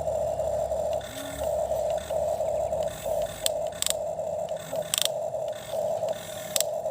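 Toy excavator's small electric motor whining in short spurts as it works, with scraping and a few sharp plastic clicks.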